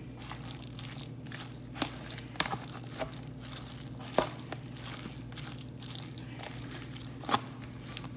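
A fork stirring a thick shredded-chicken and cream-cheese mixture in a bowl, with soft squishing and a few irregular sharp clicks of the fork against the bowl, the loudest near the end. A steady low hum runs underneath.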